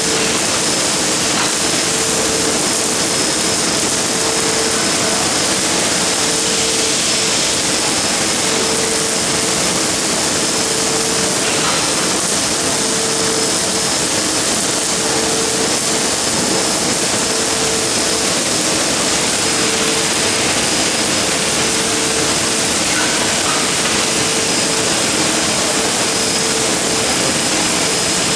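MIG welding arc from an automatic CNC gantry welder, hissing and crackling steadily without a break, with a steady machine hum underneath.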